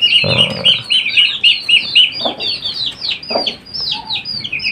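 A crowd of young chicks peeping without pause, many high, quick chirps overlapping. Three short, lower sounds break in: about half a second in, after two seconds, and after three seconds.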